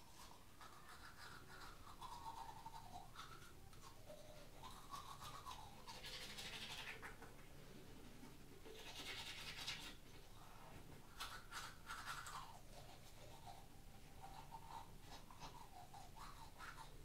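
A manual toothbrush scrubbing teeth, faint, with brief louder spells of brushing.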